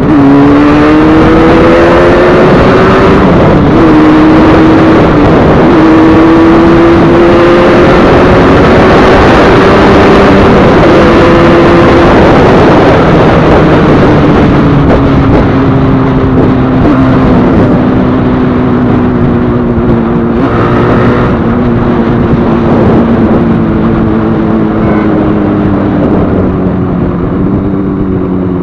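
Yamaha RD 350's two-stroke parallel-twin engine, freshly rebuilt, running under way. It revs up through a gear change in the first few seconds, holds a fairly steady pitch, then eases off slowly in the second half.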